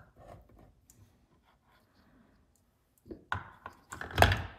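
Hands handling small parts and wiring inside the chainsaw's flywheel housing: scattered light clicks, then a louder cluster of clicks and rattles in the last second and a half.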